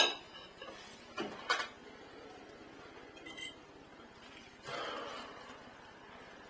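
Forks and knives clinking against plates and glasses during a meal: a few sharp separate clinks, one with a short ring about three seconds in, then a softer brief rustle about five seconds in.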